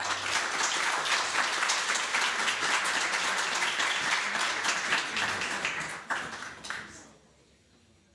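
Audience applauding: clapping breaks out suddenly as the last note of the tune ends, holds for about six seconds, then dies away.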